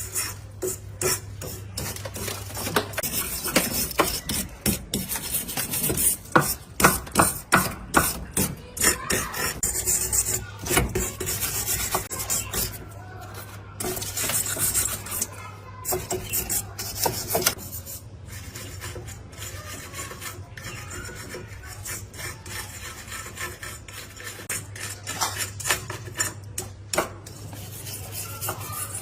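Hand filing or abrasive rubbing on a workpiece: irregular rasping strokes, busiest and loudest in the first half, over a steady low hum.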